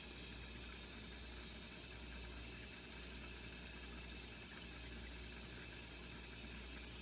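Faint, steady bubbling and hiss of a fish tank's air stone and moving water, over a low, steady hum.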